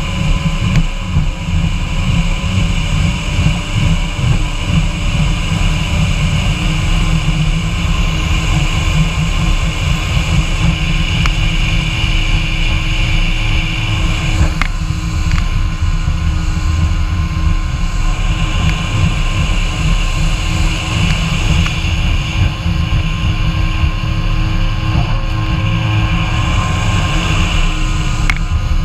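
Kawasaki Ultra 150 jet ski's three-cylinder two-stroke engine running at a steady cruise, with a heavy low rumble and faint steady whine underneath.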